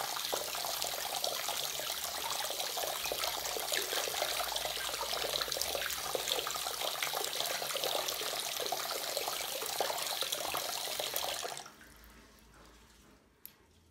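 Bathroom sink tap running full, water splashing into the basin and over a hand held under the stream. About two seconds before the end the tap is turned off and the splashing stops, followed by one small click.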